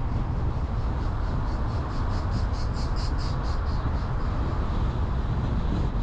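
Car driving on the road: a steady low rumble of engine, tyres and wind. A high-pitched rhythmic pulsing, about five pulses a second, swells up and fades away in the middle.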